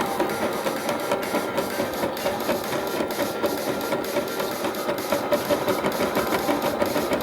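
Toy washing machine's small electric motor running, a steady whir with a regular pulse a few times a second as the drum turns.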